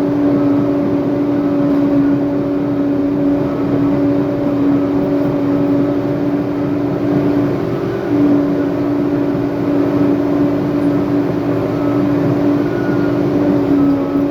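Heavy earthmoving machine's diesel engine running steadily under load, a constant drone with a brief dip in pitch about eight seconds in.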